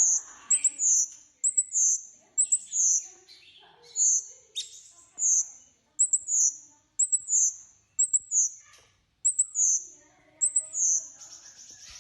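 Caged songbird singing a high-pitched phrase over and over: a quick sharp note followed by a falling slurred note, repeated about once or twice a second. Near the end it changes into a steady, rapidly pulsing high trill.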